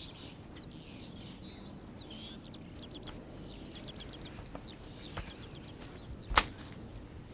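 Small birds chirping faintly over a low outdoor background hiss, with a quick run of short high notes in the middle. A single sharp knock sounds about six seconds in.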